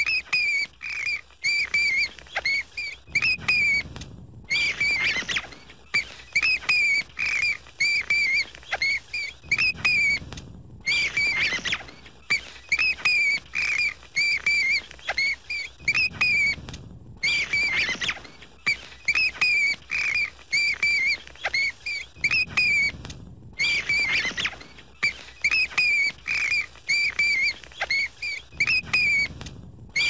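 Bat squeaking: rapid high-pitched chirps in quick clusters, broken by short pauses in a pattern that repeats about every six and a half seconds, with a brief hiss in each cycle.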